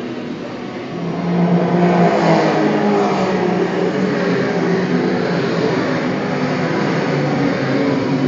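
Vehicle engine running with a steady hum that swells as it picks up speed about a second in.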